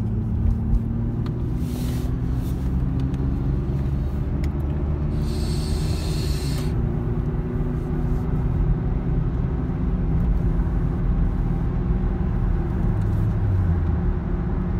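Car engine and road noise heard from inside the cabin while driving: a steady low rumble with an engine hum that shifts slightly in pitch. A brief hiss comes in about five seconds in and lasts a second and a half.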